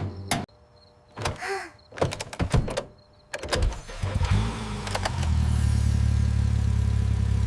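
A few short clicks and knocks, then a car engine starts about four seconds in and keeps running with a steady low hum.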